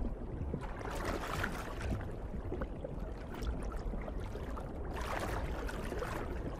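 Underwater water ambience: a steady low rumble with rushing, swishing water that swells about a second in and again around five seconds.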